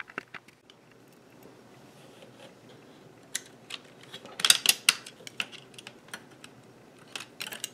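Scattered small clicks and ticks of a metal latch tool working among the needles of a 3D-printed plastic circular sock knitting machine, with a quick cluster of clicks a little past halfway.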